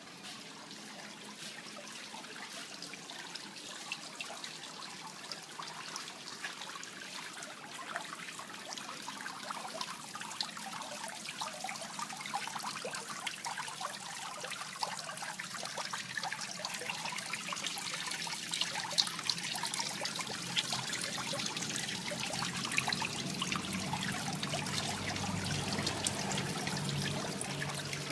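Water trickling and splashing into a fish pond, a steady patter of small droplet splashes that grows gradually louder.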